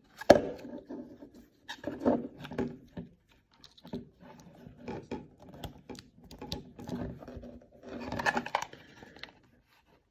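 Handling noise from a plastic alarm clock and a 9-volt battery: irregular clicks, knocks and scraping as the battery is fitted, with a sharp click about a third of a second in and a busier cluster of rattling around eight seconds in.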